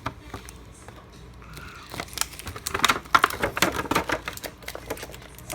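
Rapid clicking and crackling of a plastic action-figure package being handled and pulled at, picking up about two seconds in.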